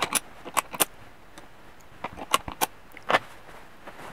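Machined aluminium slide-valve parts clicking against each other as they are handled: a few light metallic clicks in the first second, then another group of four from about two to three seconds in.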